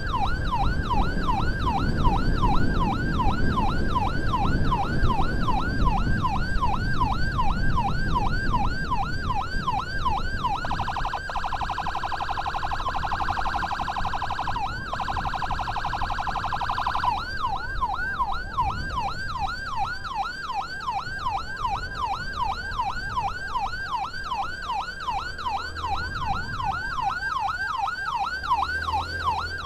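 Ambulance electronic siren sounding a fast, repeating rising yelp. About a third of the way in it switches to a much faster warble for around six seconds, then goes back to the yelp, over the low rumble of the moving vehicle.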